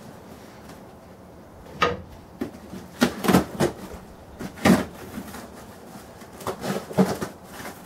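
A knife slits the packing tape on a cardboard box, with the cardboard scraping and knocking under the blade and hands. It comes as a string of irregular scrapes and knocks that starts about two seconds in, the loudest about halfway through.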